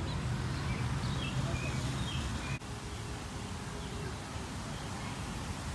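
Outdoor park ambience: a steady low background rumble with a few short, high bird chirps in the first half. The background changes abruptly about two and a half seconds in, at an edit.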